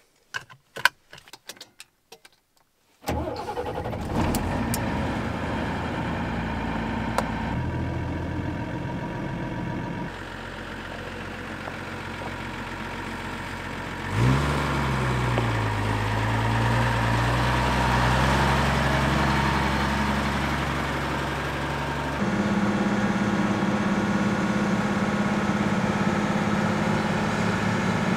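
Seat-belt clicks, then a Mercedes-Benz Unimog's diesel engine starts about three seconds in and runs at idle. About halfway through the engine sound jumps in level and sweeps down and back up in pitch. From about two-thirds of the way in the truck's engine runs steadily at a higher pitch while under way.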